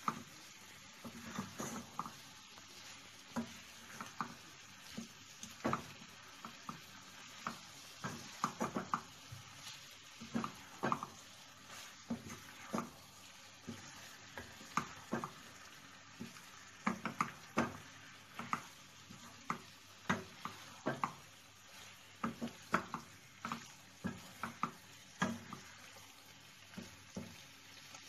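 Wooden spatula stirring pasta and vegetables in a non-stick frying pan: irregular soft knocks and scrapes against the pan, a few a second at times, over a faint sizzle.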